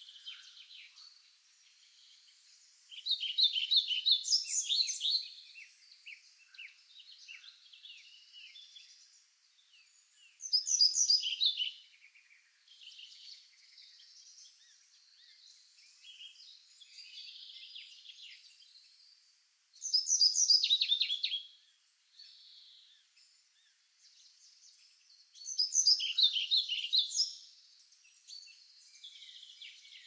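Forest songbirds singing: one bird gives four loud, rapid song phrases, each about two seconds long and spaced several seconds apart, with softer chirps and calls from other birds in between.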